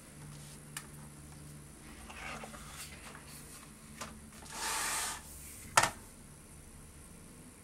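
A hardcover photo book handled on a table: a page turned with a paper rustle about two seconds in, then a louder swish as the book is slid across the tabletop, and a single sharp tap near six seconds. A few light clicks of fingers on the book come in between.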